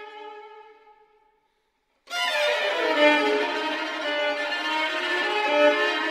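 Two violins playing a duo sonata. A held note dies away, there is a pause of about a second, then both violins come back in together suddenly and loudly with dense, many-noted playing.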